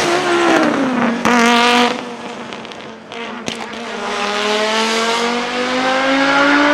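Audi Quattro S1 E2 Group B's 2.1-litre turbocharged inline-five engine, loud. Its note falls off in the first second or so, then drops quieter with a single sharp crack about halfway. After that the engine pulls again with a steadily rising pitch as the car accelerates.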